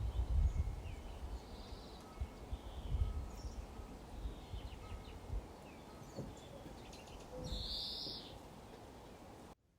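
Birds chirping with scattered short high calls over low rumbling background noise, with one louder call about seven and a half seconds in; the sound cuts off abruptly just before the end.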